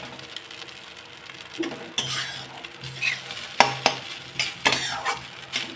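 A metal spatula stirring and scraping fried rice around a metal kadhai, with sharp clinks where the spatula strikes the pan. The strokes come irregularly from about a second and a half in, with several clinks near the end.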